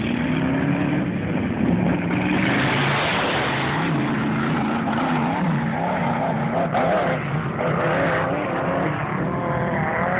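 Off-road vehicle engines (ATVs and dune buggies) running hard on sand dunes, their pitch rising and falling as they rev, with a rise about a second in.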